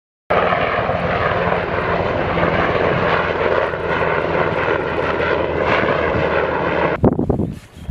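HH-60 Black Hawk helicopter flying overhead, its twin turbine engines and rotor running with a steady, fast blade chop. The sound starts abruptly just after the beginning and gives way to a few sharp knocks near the end.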